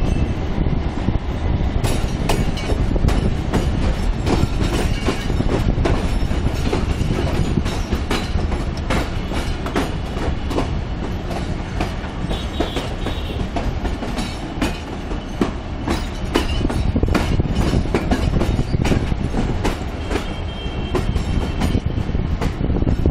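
Passenger coach wheels running over rail joints and points: a steady rumble with rapid, irregular clickety-clack, heard at the open coach door.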